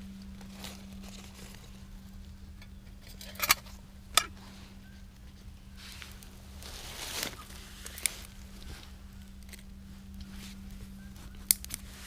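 Dry leaves crackling and crinkling as they burn and are handled on top of a wood gasification stove, with a few sharp snaps, the loudest two about three and a half and four seconds in.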